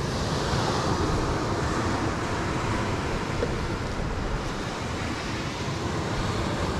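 Steady wash of surf on a beach, with wind blowing across the microphone.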